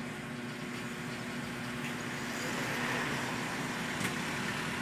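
Steady background noise with a low hum, swelling slightly around the middle.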